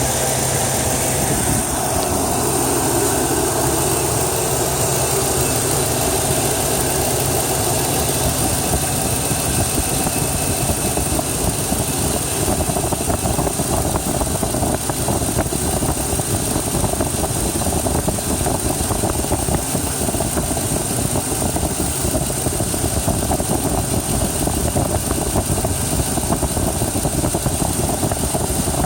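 2002 Chevrolet Tahoe's 5.3-litre V8 running at a steady idle.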